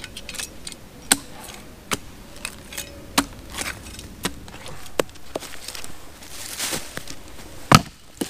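Sticks being snapped and laid for a campfire base: sharp cracks and knocks about once a second, with a brief rustle and the loudest crack near the end.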